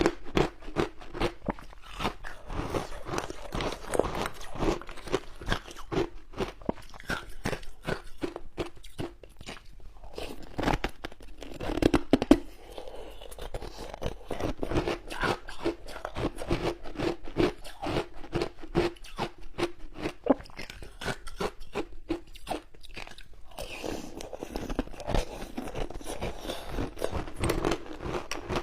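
Close-up chewing of frozen shaved ice: a continuous run of rapid, crisp crunches, with a louder burst of bites about twelve seconds in.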